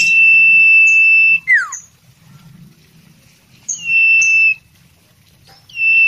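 Common iora (sirtu) singing: a long, steady, high whistle held for over a second that drops away in a quick falling note. A shorter whistle follows about halfway through, and another long whistle begins near the end.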